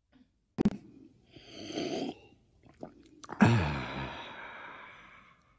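A cartoon man slurping a sip of hot tea, then letting out a long, satisfied "ahh" that falls in pitch and fades away. A short click comes just before the sip.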